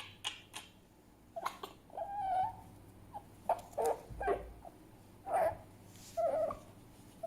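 Fennec fox calling: a few sharp clicks at the start, a longer pitched whine about two seconds in, then a string of short, separate yips and whimpers.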